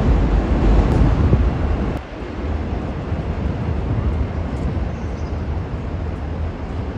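Outdoor rumble with wind buffeting the microphone. It is loudest for the first two seconds, drops suddenly about two seconds in, then runs on steadily.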